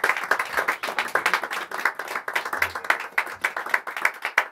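Audience applauding: many hand claps together.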